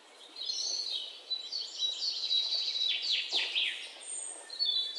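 Small birds chirping: a busy run of high-pitched calls with several quick downward sweeps around the middle, over a steady hiss.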